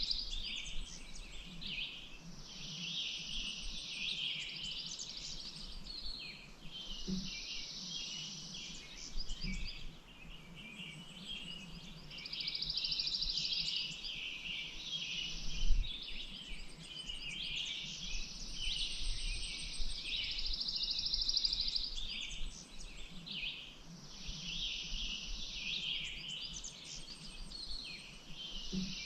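Songbirds singing: long buzzy trills of two to three seconds each, repeating over and over, mixed with shorter chirps, over a faint uneven low wash of lake water. A single low thump about sixteen seconds in.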